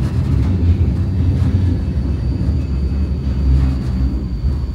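Vienna tram running along its line: a steady low rumble of the car on the rails. A faint, thin, steady high whine joins about a second in.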